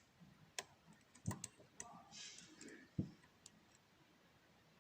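Small, sharp metallic clicks and taps, about six at uneven intervals, of a lock pick and tension wrench working the pin stack inside a pin-tumbler challenge lock.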